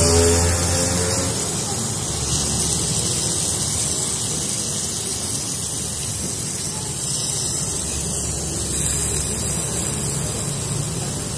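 Gravy poured onto a hot iron sizzle plate of steak, sizzling and spitting steadily. The tail of background music fades out about a second in.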